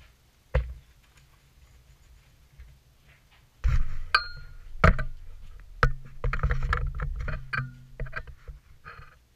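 Ceramic floor tile being handled: one dull knock near the start, then from about four seconds in a run of clinks and knocks, some with a short ring, and scraping as the tile is lifted, turned and laid on the floor.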